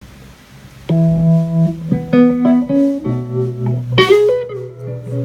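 Guitar played as single held notes, picked one after another and left to ring, starting about a second in, with a sharper, brighter plucked note near four seconds.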